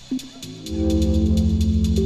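Ambient electronic music: a fast, steady ticking beat over low held bass notes, which dip away and then swell back in a little under a second in.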